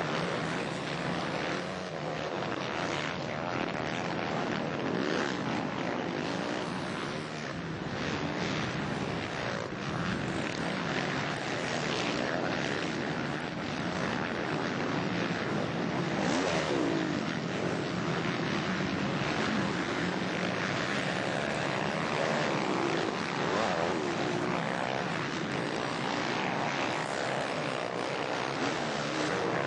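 Four-stroke motocross bikes racing, their engines revving up and down as they go through the gears.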